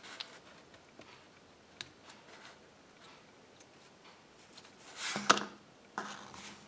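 Small plastic parts of a Kinder Surprise toy snowmobile being handled and pressed together: a few faint clicks, then a louder scrape ending in a sharp snap about five seconds in, and another click a second later.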